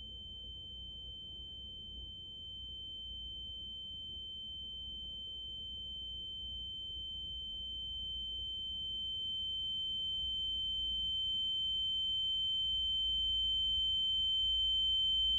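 A single steady, high-pitched electronic tone that grows gradually louder throughout, over a faint low hum.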